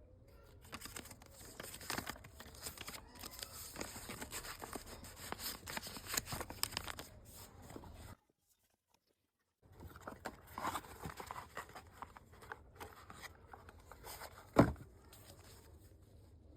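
Packaging being torn open and crinkled by hand while unboxing stickers: a dense run of tearing and rustling that cuts out completely for about a second and a half in the middle, then resumes, with one sharp knock near the end.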